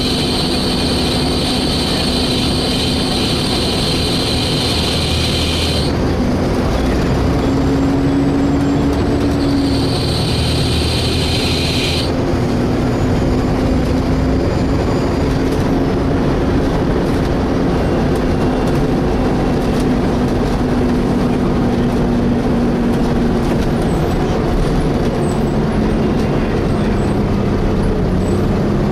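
Interior of a Volvo B7TL double-decker bus under way, the engine and drivetrain running with a low whine that drifts in pitch. A loud, high-pitched screech sounds over it, cuts off about six seconds in, comes back for about two seconds, then stops.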